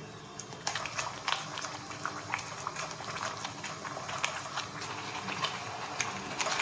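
Thick muscoth halwa (wheat milk, coconut milk and sugar) boiling down in a pan, large bubbles bursting in irregular popping plops that start about a second in. The mixture has cooked down to the glassy stage.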